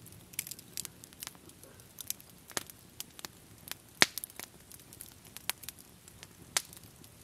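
Wood campfire crackling, with irregular sharp snaps and pops over a faint hiss; the loudest pop comes about four seconds in.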